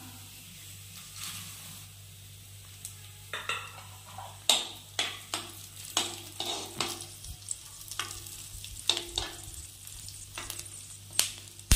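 Cashews, raisins and melon seeds frying in ghee in a nonstick pan with a faint sizzle, while a metal spoon stirs them, scraping and tapping against the pan in quick irregular strokes from about three seconds in. The loudest stroke comes near the end.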